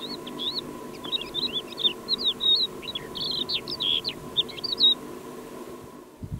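Crested lark singing: a quick, varied run of whistled and slurred notes that lasts about five seconds, then stops.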